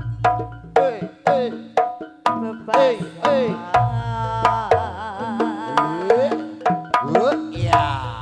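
Live jaranan gamelan music: sharp hand-drum (kendang) strokes two or three a second under a wavering, bending melody line, with deep gong tones swelling in three times.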